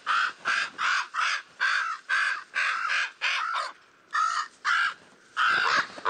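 Common raven nestlings begging at the nest: a rapid run of harsh, rasping calls, about two a second. There is a short break near the middle and one longer call near the end.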